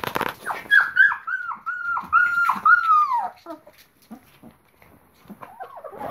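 Labrador retriever puppy whining in a quick run of about eight high yelps, each dropping in pitch at its end, the last one drawn out and falling. A short burst of noise comes just before, and fainter whines follow near the end.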